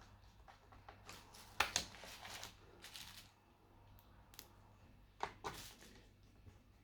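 Handling noises on a laptop: scattered light clicks, taps and rustles, with a sharper knock about a second and a half in and two more around five seconds in.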